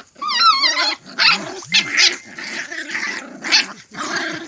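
Dogs fighting, snarling and growling in loud bursts, with a high wavering yelp near the start.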